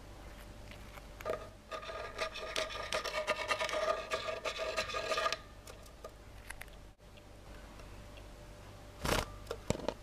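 A masked lovebird gives a rapid, rasping chatter for about four seconds, held on a steady pitch. Near the end come a few sharp knocks.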